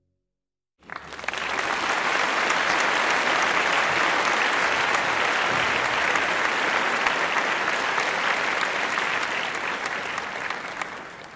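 Audience applause: a dense patter of many hands clapping that starts about a second in, swells quickly to a steady level, then fades out near the end.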